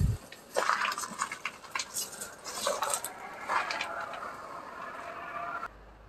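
Footsteps crunching over dry leaves and scattered debris, with irregular rustles and small clinks. The sound cuts off abruptly near the end.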